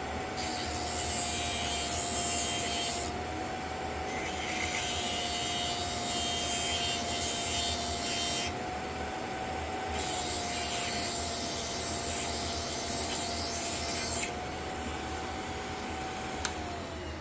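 VEVOR electric drill bit sharpener running with a steady motor whine while a drill bit is ground against its wheel in three rasping passes of a few seconds each. The motor is switched off near the end and its pitch falls as it spins down.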